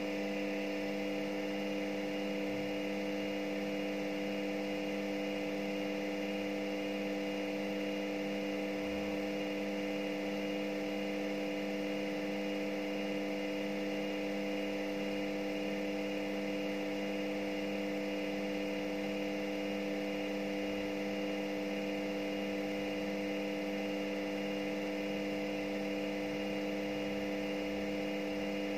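Front-loading washing machine in its spin cycle, the drum held at a steady top speed: a constant motor whine made of several steady tones.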